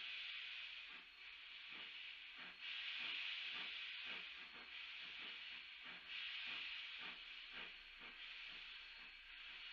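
Baldwin K36 2-8-2 narrow-gauge steam locomotive moving off slowly: steam hissing in repeated surges over a soft, regular exhaust chuff of about two to three beats a second.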